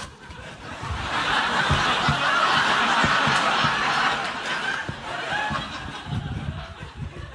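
Studio audience laughing, building about a second in and easing off toward the end.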